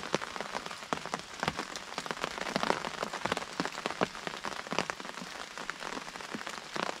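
Rain falling on a pop-up hunting blind: a steady hiss with many irregular drop taps on its roof and walls.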